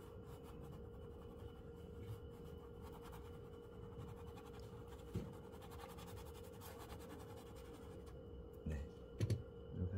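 Oil-paint brush scrubbing and stroking on canvas: soft, scratchy rubbing, with a faint steady hum underneath and a few light knocks near the end.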